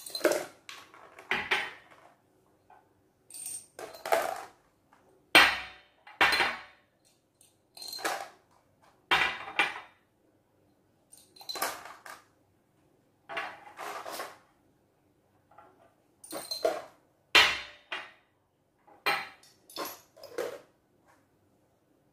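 Small glass jars and a plastic cup being handled on a table: a string of clinks and knocks, roughly one every second or two, as the jars are set down, bumped together and small objects are tipped from one into another.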